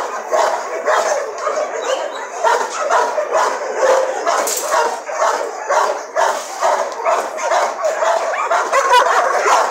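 Several dogs barking and yipping at once, their calls overlapping without a break.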